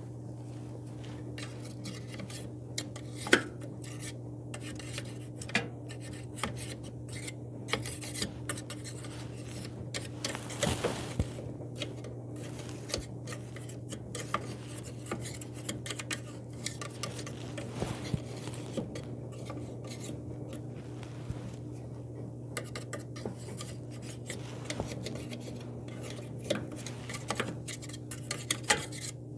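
Irregular scraping, rubbing and light clinks of lint being pulled and scraped out of a dryer's blower housing by hand, with one sharper click about three seconds in. A steady low hum runs underneath.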